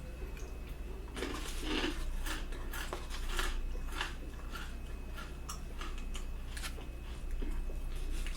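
Close-miked eating: chewing and mouth noises with irregular short clicks and scrapes of a utensil.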